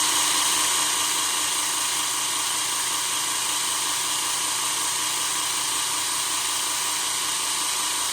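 Work Sharp Ken Onion Edition electric belt sharpener, with its blade grinding attachment, running steadily with no blade on the belt: an even motor whir and belt hiss with a steady hum, drawing about 112 watts.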